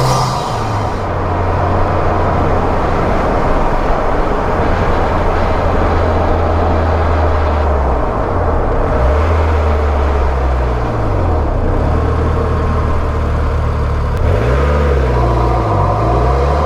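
Mitsubishi Lancer Evolution X's turbocharged 2.0-litre four-cylinder running through a K&N Typhoon cold-air intake, heard under the hood. The engine holds a steady note, then its pitch dips and climbs back several times in the second half as the engine speed changes.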